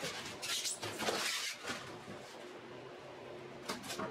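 Packaging being handled: the metal cabinet of an air cleaner scraping and sliding against its foam packing and cardboard box, in several short rustling, scraping bursts, the loudest about a second in and again just before the end.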